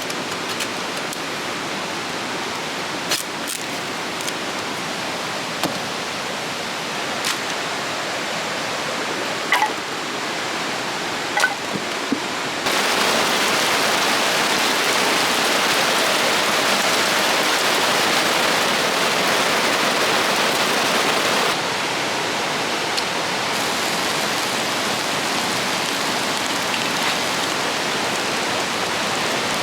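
River water rushing, a steady, even hiss. It steps up abruptly about a third of the way in and drops back somewhat later. A few short clicks and small chirps come in the first part.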